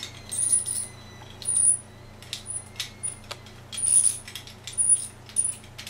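White plastic washbasin drain fitting squeaking and clicking in short, irregular bursts as its reverse-threaded plastic nut is twisted loose by hand.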